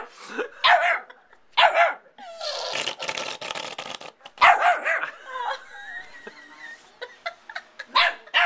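Scottish terrier puppy barking in short, sharp barks, again and again. Near the middle comes a raspy fart noise about two seconds long from a whoopee cushion, and the puppy barks back at it.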